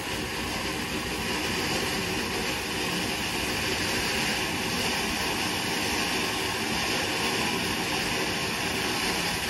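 A sparkling ground firework, a 'Dio' cracker, burning with a steady hiss as it throws out sparks, without any bang.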